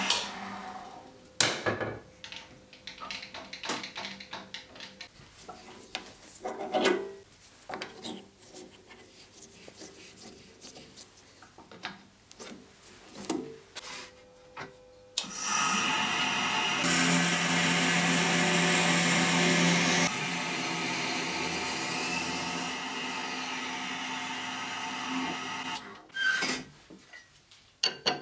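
Hegner wood lathe switched off and running down, then scattered clicks and knocks as a drill chuck and bit are set up in the tailstock. About fifteen seconds in, the lathe runs again and a twist drill held in the tailstock bores into the work for about eleven seconds, stopping shortly before a few closing clicks.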